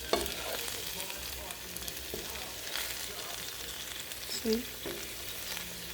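Green beans and tofu sizzling steadily in a hot pan as they are stir-fried, with a few sharp clicks from the stirring.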